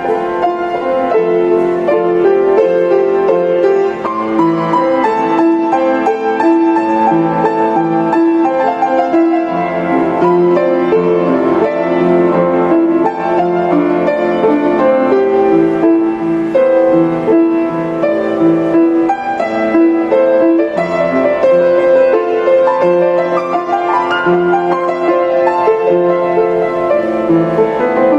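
Instrumental piano music, playing continuously.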